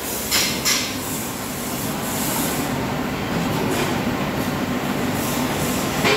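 Electric overhead crane hoisting a suspended tractor with its implement: a steady mechanical running rumble, with two metal clanks about half a second in and another near the end.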